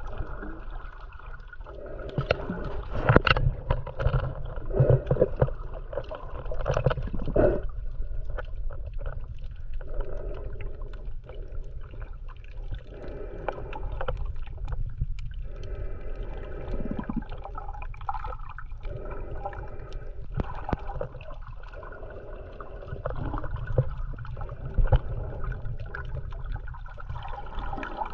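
Muffled underwater sound picked up by a snorkeller's camera held below the surface: a steady low rumble of water with scattered clicks and bubbling, swelling and fading every few seconds.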